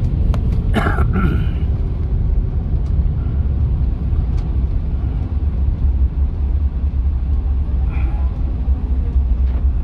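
Steady low cabin rumble inside a Boeing 747-8 rolling out on the runway just after landing, from its engines and the wheels on the runway. A brief, higher sound stands out about a second in.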